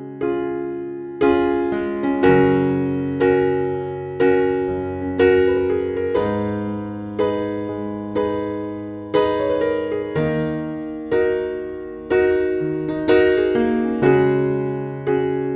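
Background music: slow electric piano chords, struck about once a second and left to ring and fade.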